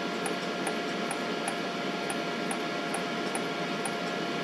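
Pulsed laser welder firing repeated short pulses while welding a gold prong onto a ring: a faint, regular tick about twice a second over a steady machine hum with a constant tone.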